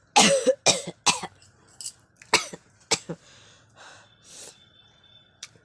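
A person coughing hard in a quick string of about eight short coughs, then drawing a couple of breaths.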